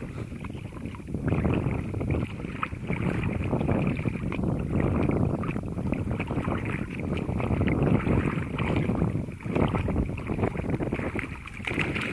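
Shallow seawater sloshing and splashing around a small swimming Pomeranian, rising and falling unevenly, with wind buffeting the microphone.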